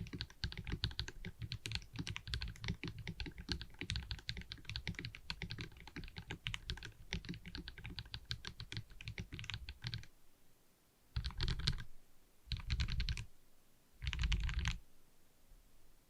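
Mechanical keyboard with lubed KTT Peach linear switches, PBT Cherry-profile keycaps and an acrylic gasket-mount case, typed on quickly and continuously for about ten seconds. After a short pause come three brief, dense bursts of keystrokes, then it goes quiet.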